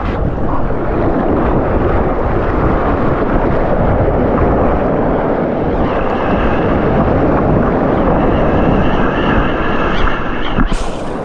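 Strong wind blowing across the microphone: a loud, steady, buffeting rumble. Faint steady high tones join about halfway through.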